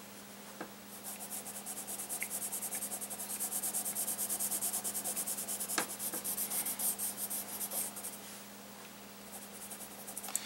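Pencil shading on sketchbook paper: rapid back-and-forth scratching strokes of the lead across the page. They run steadily from about a second in until about eight seconds, then come fainter and sparser. A faint steady hum lies underneath.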